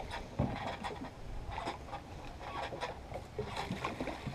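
Gasoline pouring from a red plastic outboard fuel tank into a plastic jug, the tank being emptied of fuel suspected of carrying sediment, with small knocks and scrapes of the plastic as it is handled.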